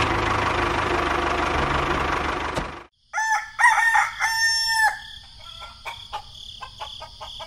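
A tractor engine running for about three seconds, cut off suddenly. After a brief silence a rooster crows, followed by softer clucking and clicks.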